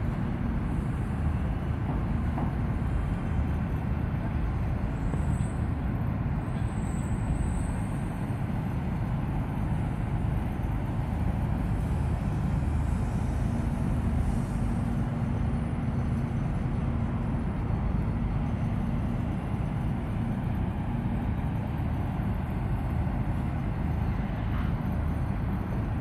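Steady low rumble of funfair background noise from distant ride machinery, with a faint steady hum coming in near the middle and wind buffeting the phone's microphone.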